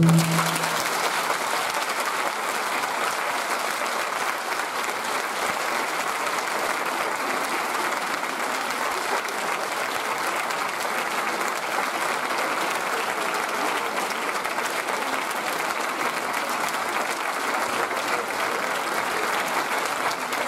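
Audience applauding steadily, a dense, even clapping of many hands that starts as the music stops.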